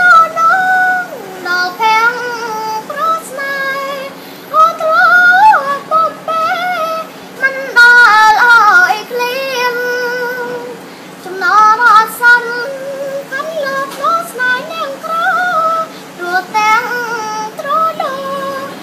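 A young girl singing solo in a high voice, with long held notes that bend and waver in pitch, in phrases broken by short pauses.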